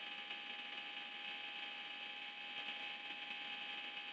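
Steady hiss with a constant faint tone underneath, the open-channel background of a mission-control communications loop between callouts.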